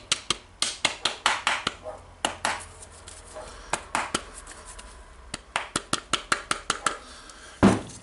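Sharp metallic clicks and knocks in quick runs as the parts of an Eibenstock EHD 1300 diamond core drill are worked together by hand during reassembly, with one heavier thump near the end.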